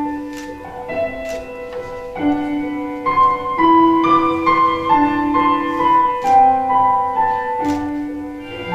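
Recorded music: a slow keyboard melody of held notes, changing about once a second, with a light tick roughly once a second.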